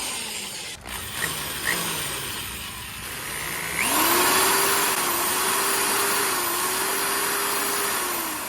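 Electric drill powered from a newly wired outlet: the motor winds down from a short run over the first few seconds, with a couple of brief trigger blips, then spins up about four seconds in and runs steadily at full speed for about four seconds before winding down near the end. The drill running shows the outlet is live.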